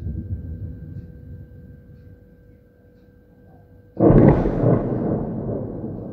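An exploding shell about four seconds in: a sudden loud blast, then a long rumble that slowly fades. At the start the rumble of an earlier explosion is still dying away.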